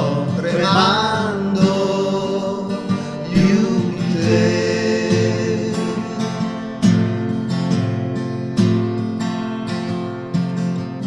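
A man singing long held notes over a strummed steel-string acoustic guitar; in the second half the guitar strumming stands out more.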